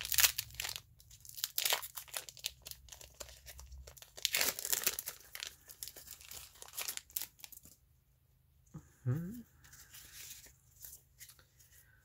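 Foil Pokémon booster pack wrapper crinkling and tearing as it is opened, a run of sharp crackles that dies away about eight seconds in.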